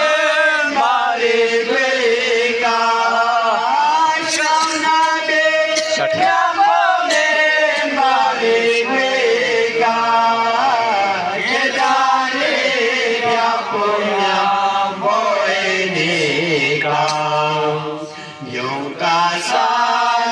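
Male voices singing a devotional qasida together without instruments, a youth leading into a handheld microphone with a man and a boy joining in. The singing dips briefly near the end.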